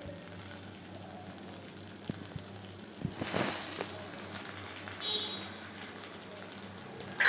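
Sliced onions sizzling in hot oil in an iron kadhai: a steady light crackle with scattered small pops, and a brief louder burst about three seconds in.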